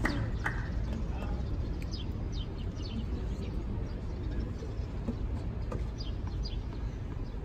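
Open-air stadium ambience: a steady low background rumble with a few short, quick downward bird chirps scattered through it, and two sharp taps in the first half-second.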